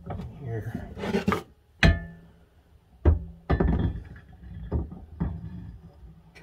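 A heavy cast-iron andiron knocking against the steel bench vise as it is set in place: a few sharp metallic clanks, the loudest about two seconds in with a brief ringing tail, then two more about a second later and lighter knocks after.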